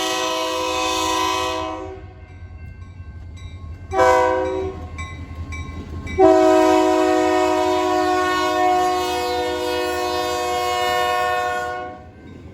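Locomotive air horn sounding a chord of several tones: a long blast ending about two seconds in, a short blast about four seconds in, and a long blast from about six seconds in until near the end. This fits the long-long-short-long grade-crossing warning. A low rumble from the passing train runs underneath.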